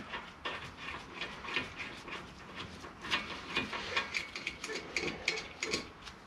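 Ratchet wrench clicking in short runs, with light metal clinks, as the 14 mm lower slide bolt of a car's brake caliper is undone.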